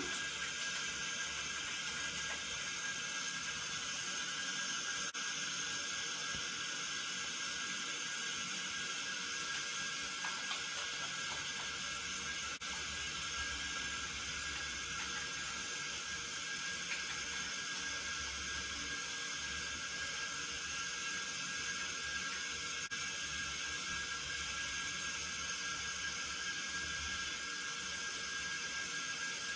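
Tap water running steadily into a sink, a constant hiss.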